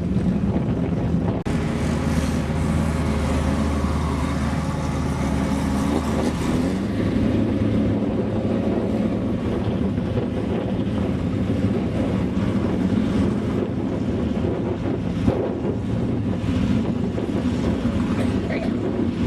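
Off-road desert race vehicles' engines running, mixed with wind buffeting the microphone. The sound changes abruptly about a second and a half in and again a few seconds later.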